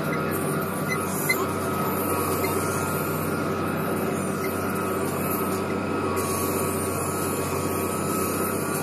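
Valtra T160 tractor's six-cylinder diesel engine running steadily under load, heard from inside the cab while pulling a Kühne KRT-6 short disc harrow through the soil. A single sharp tick comes about a second in.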